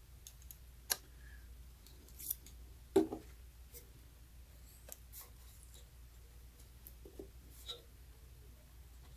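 A knife blade working between a band saw's gearbox cover and housing to break a stuck cork gasket loose: scattered clicks and scrapes of metal, with a sharper knock about three seconds in.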